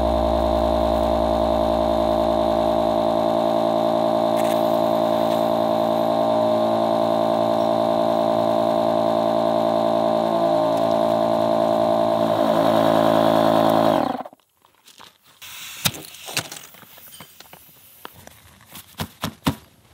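Portable electric air pump running steadily while inflating an air tent, then cutting off abruptly. After it stops, a few light rustles and clicks of tent fabric being handled.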